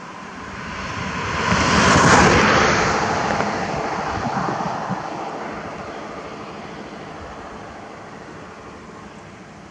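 A passing vehicle: its noise swells to a peak about two seconds in, then slowly fades away.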